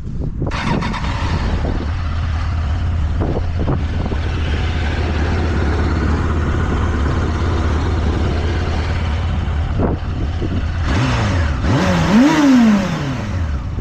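1996 Honda CBR1000F inline-four running steadily through its stock mufflers, then revved once near the end, the pitch climbing and dropping back.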